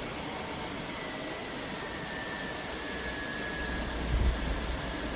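Cadillac Escalade's 5.7-litre V8 idling steadily after just catching, with a low bump about four seconds in; it now idles smoothly at about 900 rpm, its crank-no-start cured by a new distributor cap and rotor.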